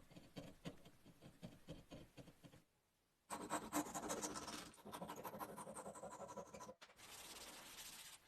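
Scraping and rubbing on wood, in a few short sections that change abruptly, with a brief near-silent gap about three seconds in.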